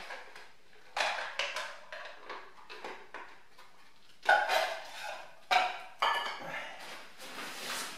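Hands rummaging in a hiking backpack: its nylon fabric and a dry bag rustling in a series of short scrapes and crinkles, with a longer rustle near the end as the dry bag is pulled out.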